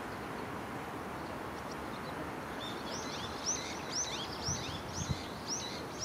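A small songbird sings a run of high, arched chirping notes, repeated about twice a second, starting about halfway in. It sings over a steady outdoor background hiss.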